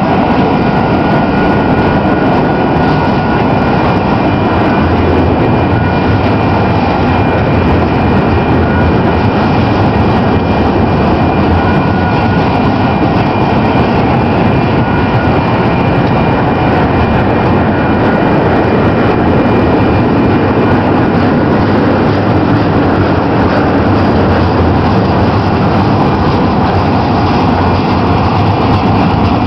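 Double-stack container well cars of a freight train rolling steadily past, a loud continuous rumble of steel wheels on the rails, with faint steady high tones over it.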